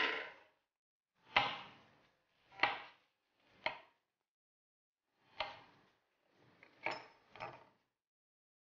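Chef's knife cutting through white button mushrooms onto a wooden cutting board: about seven separate knocks, roughly a second apart.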